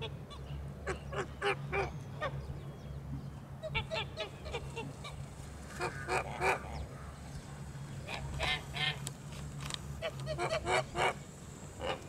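Flock of domestic geese honking: clusters of several short, loud calls every couple of seconds, with quieter stretches between.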